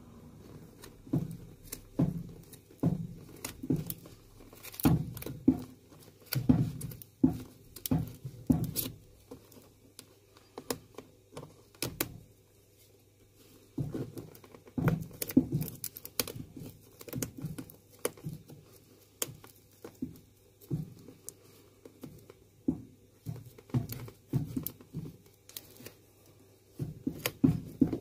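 A knife cutting through the outsole stitching of a golf shoe, stitch by stitch: a run of short, sharp, irregular clicks and snaps, with a few brief pauses.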